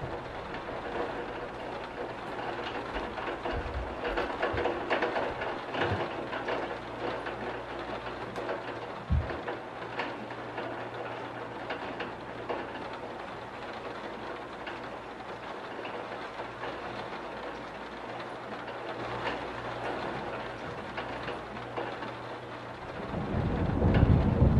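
Steady rain falling on window glass: an even hiss with many small drop ticks. Low rumbles come and go, and one swells louder near the end.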